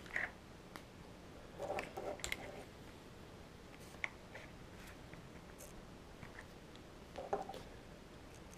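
A few faint clicks and short handling noises from hands working a hobby radio transmitter and a small analog servo on a desk, with brief bursts about two seconds in and again near the end.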